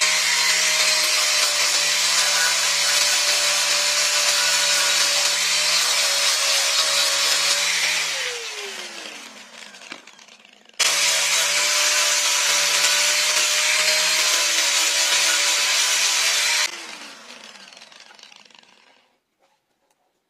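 Bosch electric angle grinder with a sanding disc on a foam backing pad, sanding a wooden dagger handle; it runs with a steady whine for about eight seconds, is switched off and spins down with a falling whine, then starts again about eleven seconds in and runs about six seconds before spinning down once more.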